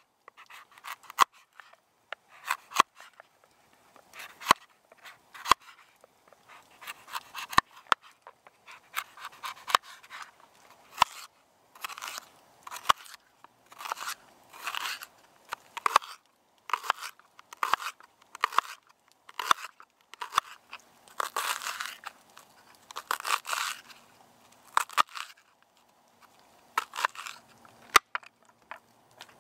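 A kitchen knife cutting vegetables on a bamboo chopping board: crisp crunching cuts through butternut squash, then red pepper, then mushrooms, with sharp taps of the blade striking the board in an irregular rhythm.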